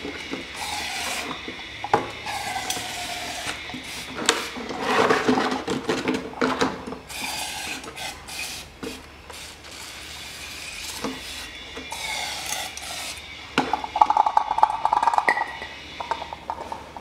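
Aerosol carburettor cleaner sprayed through a straw onto an oil filter housing cap in repeated hissing bursts. Clicks, rubbing and clatter come from the cap being turned in the hand over a container, with a louder clattering spell near the end.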